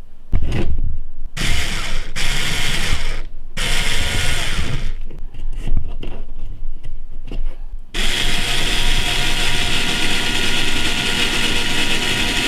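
Ryobi cordless screwdriver running as it drives the centre screw that holds a drive cup to the C-hub: a couple of short runs about two seconds in, then one steady whirring run of about five seconds starting about eight seconds in.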